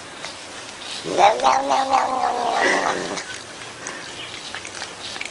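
Domestic cat giving one long, drawn-out yowling meow, about two seconds long, starting about a second in, with a strange demonic quality.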